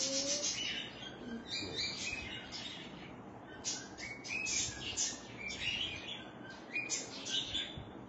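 Birds chirping: a string of short, high chirps coming irregularly throughout, over a faint hiss.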